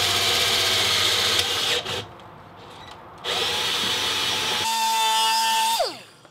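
Power drill running in two bursts with a short pause between them. The second burst turns to a steady whine and ends with the motor winding down in pitch as the trigger is let go.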